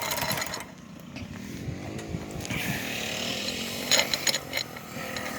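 Small gas engine of a go-kart or gas scooter running, its pitch rising and falling, with a few sharp metallic clicks about four seconds in.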